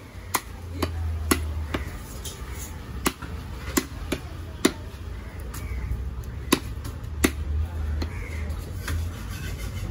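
Heavy long-bladed fish knife chopping through grouper head and bone onto a wooden log chopping block: sharp, irregular whacks, about a dozen in all, some in quick pairs.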